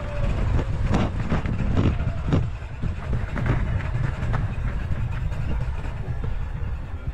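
Mountain bike rattling and clattering over rough ground while riding, with irregular sharp knocks that come thicker in the first few seconds. A heavy low rumble of wind on the microphone runs under it.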